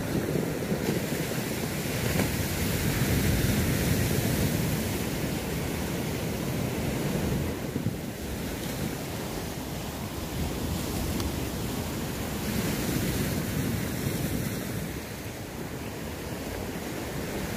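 Sea surf washing against the shore, swelling and easing, with wind buffeting the microphone.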